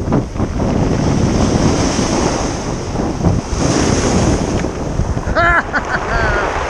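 Wind buffeting the microphone over surf washing up and draining back on a pebble beach. Near the end come two short high-pitched calls.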